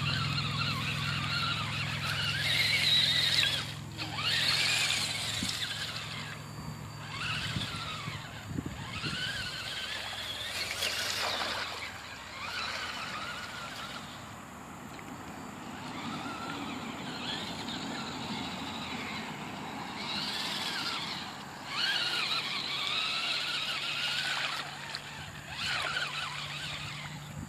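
HPI Crawler King RC crawler's electric motor and gearbox whining, the pitch rising and falling again and again as the throttle is worked while it churns through mud.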